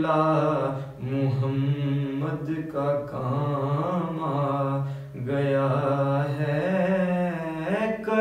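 A man's solo voice reciting a naat, unaccompanied, in long melodic phrases with held, wavering notes and brief breaths between them.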